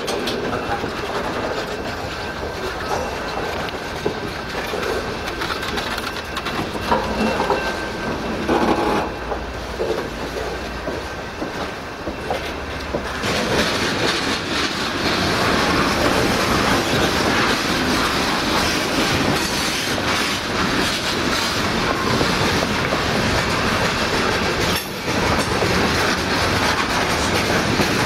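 Freight train of loaded gondola cars rolling past, wheels clattering over the rail joints with a faint steady squeal. About halfway through the rolling noise grows louder and harsher.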